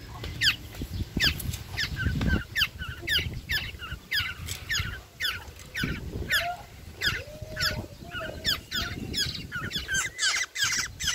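Young black-naped oriole begging for food: a rapid series of high, thin calls, each sliding steeply down in pitch, two to three a second.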